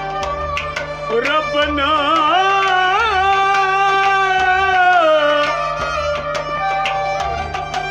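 Kashmiri Sufi kalam: harmonium chords sustained under a male voice that rises in and holds one long, ornamented note with vibrato for several seconds, while a drum keeps a slow, steady beat.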